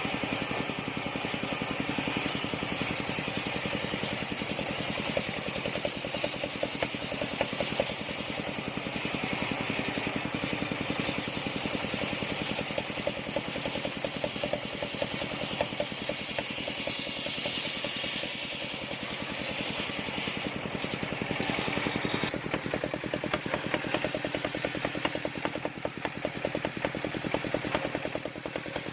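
The engine of a machine circular saw (serkel) running steadily, with a rapid even firing beat and a hissing, whirring layer above it.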